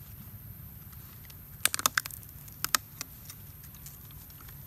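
Sharp clicks and crackles of a thin plastic water bottle being gripped and bitten by a young monkey, in two quick clusters about two seconds and two and a half seconds in.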